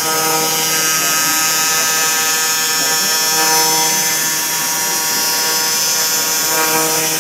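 YAG laser cutting machine cutting sheet metal: a steady high hiss at the cutting nozzle over an even machine hum made of many steady tones.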